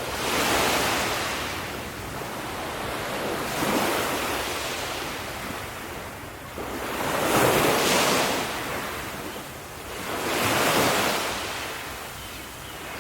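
Ocean waves breaking on a shore, the surf rushing in and washing back four times in slow swells.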